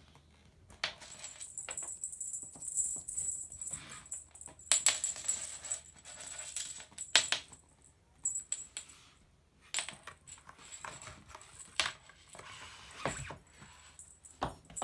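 Cat toys rattling, clicking and jingling in irregular bursts as a kitten pounces and bats at them on a wooden floor, with a thin high bell-like ring through much of it.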